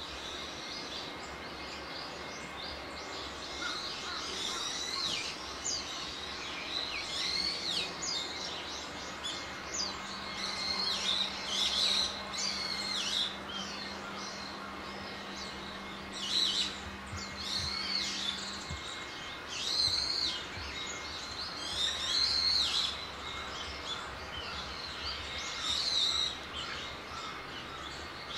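Wild birds calling over and over outdoors: high, sharp chirps and short notes that sweep up and down, with several louder runs of calls in the second half.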